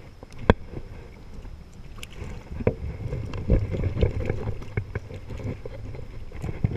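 Water sloshing and splashing as hands work in shallow, choppy water to let a catfish go. Scattered sharp clicks and knocks run through it, the loudest about half a second in.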